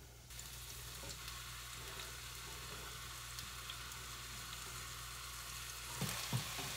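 Steady sizzling of food frying in hot oil on a stovetop, with a few knocks of a wooden spoon near the end.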